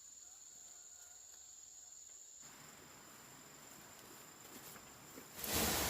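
Insects trilling with a steady high-pitched tone in forest ambience. Near the end a much louder even hiss sets in.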